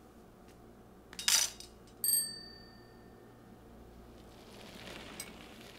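A bicycle bell rings once about two seconds in, its high ring fading over about a second and a half, after a brief rustle about a second in.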